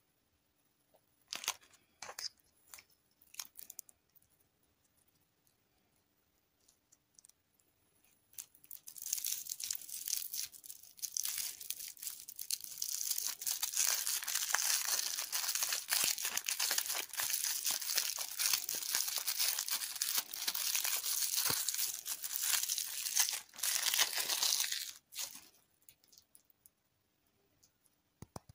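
A few clicks in the first seconds, then a lollipop's shiny plastic wrapper crinkling and tearing for about fifteen seconds as it is peeled off the candy.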